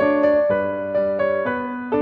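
Background piano music, a melody of notes struck every quarter to half second.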